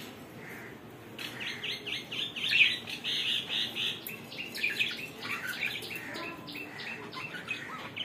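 Budgerigars chattering: many short, high chirps in quick succession, starting about a second in.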